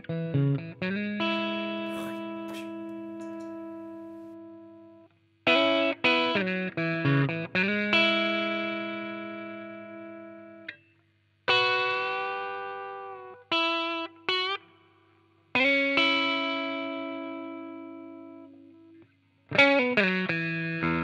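Fender Mustang electric guitar played through a Klon-style overdrive pedal (KINK FX Femtaur): several short phrases of quick picked notes, each ending on a chord left ringing and fading for a few seconds, with brief silences between.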